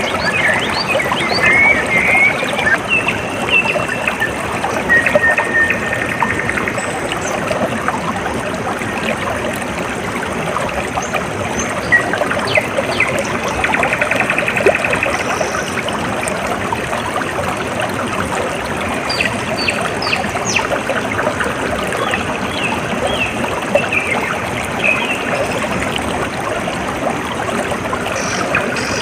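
Water trickling and flowing steadily, with small birds chirping, whistling and giving short rapid trills over it.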